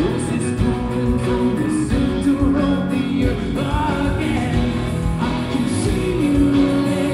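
Rock band playing live with electric guitars, bass, drums and a male lead singer, loud and steady throughout, as heard by a phone recording from among the audience.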